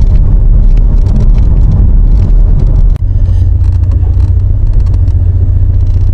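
Porsche being driven, heard from inside the cabin: a steady low road and drivetrain rumble with irregular short rattling clacks, the 'ga-ga-ga' noise that seems to come from the dashboard but which the mechanic traced to the fuel tank area.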